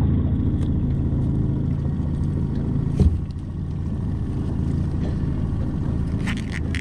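A small boat's motor running steadily at a low hum, with a single knock about three seconds in and a few clicks near the end.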